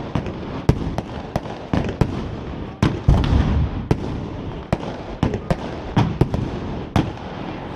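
Aerial fireworks going off in a rapid, irregular string of sharp bangs and crackles. There is one heavier, deeper boom about three seconds in.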